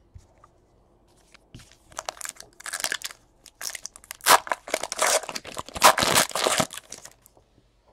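Foil wrapper of a Panini Elite Extra Edition baseball card pack being torn open and crinkled by hand: a run of crackling tears and crinkles that starts about a second and a half in and is loudest in the second half.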